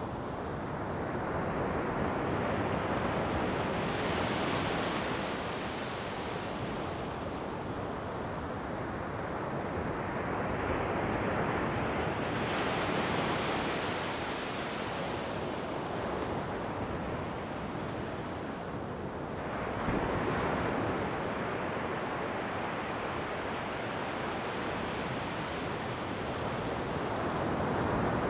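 Ocean waves breaking and washing up the shore, the surf swelling and easing in slow surges about every eight seconds, one crashing in more abruptly about two-thirds of the way through.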